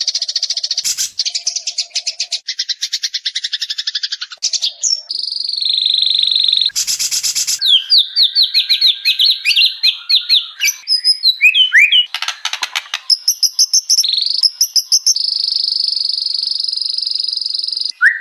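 White-rumped shama singing a fast, varied song of rapid ticking trills, falling chirps and long held whistles. Twice, about a third and two-thirds of the way in, the song is broken by a short harsh rasping burst.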